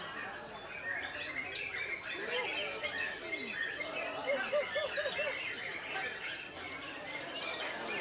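Several caged white-rumped shamas singing at the same time, a dense mix of overlapping chirps and whistles, with a run of four short repeated notes about halfway through.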